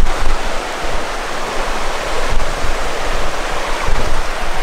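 Rushing mountain stream: a steady, loud rush of water, with wind rumbling unevenly on the microphone.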